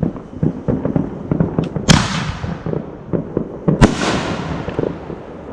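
Aerial fireworks bursting overhead: a steady run of crackling pops, with two loud booms about two seconds apart, each fading away in a long rumbling tail.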